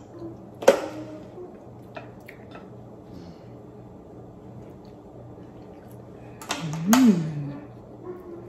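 Snow crab shell snapping sharply as it is peeled by hand, then a few light clicks of shell being picked. About seven seconds in, a cluster of bite and eating noises with a short hummed 'mm' that rises and falls in pitch.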